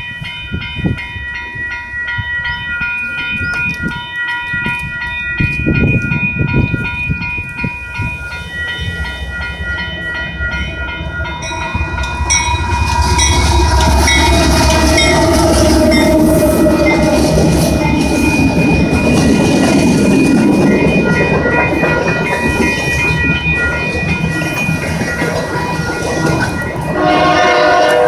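Railroad grade-crossing bells ringing steadily as a freight train approaches. About twelve seconds in, the lead Union Pacific AC44CWCTE diesel locomotive reaches the crossing, and its engine rumble and the rolling wheel noise get much louder and keep on as the train passes.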